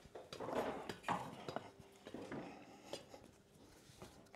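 Faint scattered knocks, clinks and rustling as people move about and handle tools and materials, busiest in the first second and a half.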